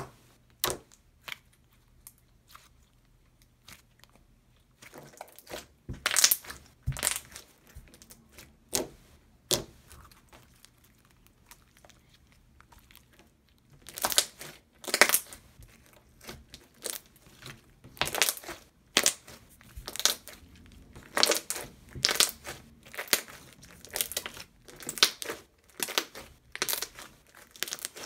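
Hands poking, squeezing and folding a thick, glossy peaches-and-cream slime, making sharp clicks and pops. The clicks come sparsely at first, thicken about five seconds in, thin out for a few seconds in the middle, then follow in quick succession.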